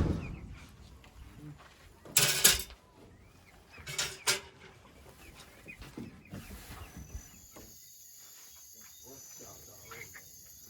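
Two short bursts of noise in the first half, then from about seven seconds in a steady high-pitched chorus of crickets, with a few faint bird chirps near the end.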